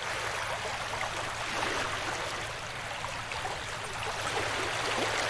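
Water trickling and splashing steadily, with a faint low hum underneath.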